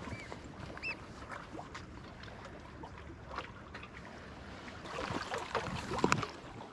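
Light wind and water lapping against a rock breakwater, with scattered knocks and rustles from walking over the rocks and handling a fishing rod, busiest and loudest about five to six seconds in. Two short high chirps sound within the first second.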